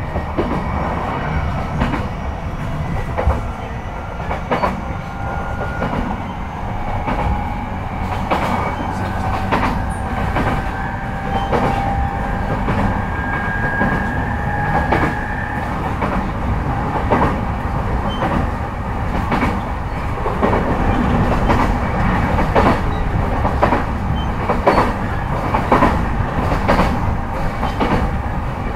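Onboard running sound of an E233-5000 series electric train, heard inside a motor car. The inverter and traction motor whine rises slowly in pitch as the train gathers speed, then stops about halfway through. Under it run a steady rumble of wheels on rail and rhythmic clicks over rail joints.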